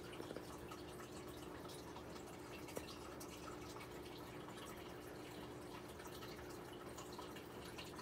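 Faint bubbling and dripping of water in a small aquarium tank, over a steady low hum. One light click about three seconds in.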